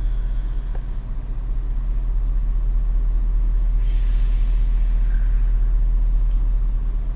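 Truck's diesel engine idling, heard from inside the cab as a steady loud low hum, with a brief rustling noise about four seconds in.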